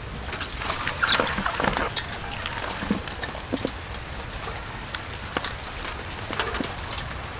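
Raw chicken gizzards and vegetables being tossed by hand in a stainless steel bowl: wet squelching and rustling with scattered light clicks, busiest early on.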